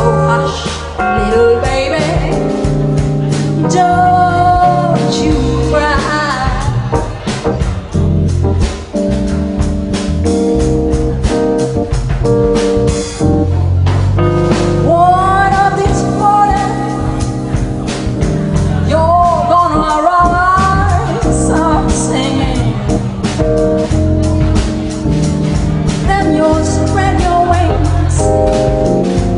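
A woman singing a slow jazz song into a microphone, backed live by a jazz combo of upright double bass, drum kit and electric keyboard.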